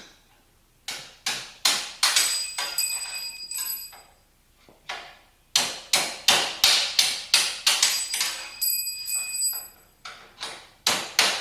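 Hammer blows knocking the pins out of an aluminum pallet to free a damaged slat. The strikes come singly at first, then in a fast series, each with a short metallic ring.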